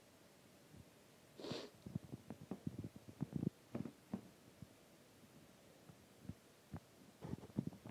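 Faint handling noise of a phone held in one hand while socks are pulled on: a brief breathy rustle about a second and a half in, then soft knocks and rubbing in two spells, the second near the end.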